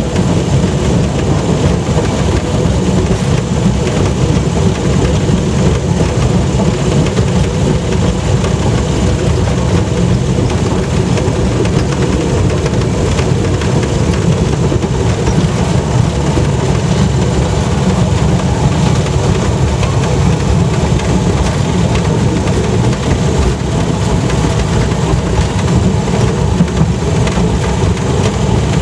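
Rail-converted Land Rover heard from inside its cab while travelling along the narrow-gauge track: the engine running steadily under a constant low rumble, with no change in pace.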